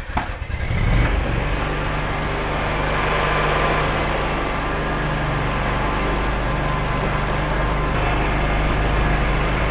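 Skag Cheetah zero-turn mower's engine running steadily as the mower is driven off, getting louder about a second in. It is being run after a hydro service to work the air out of its freshly filled Hydro-Gear 5400 transmissions.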